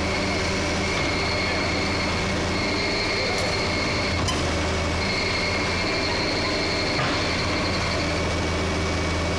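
Crawler excavator's diesel engine running as the machine crawls onto a steel lowboy trailer deck. A high whine comes and goes, and there are a few faint knocks from the steel tracks.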